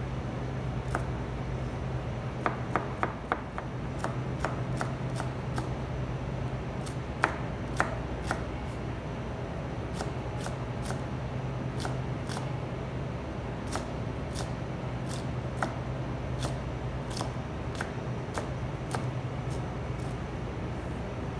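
A kitchen knife chopping vegetables (carrots, then green beans) on a plastic cutting board: irregular sharp knocks as the blade strikes the board, a few louder ones in quick runs. A steady low hum runs underneath.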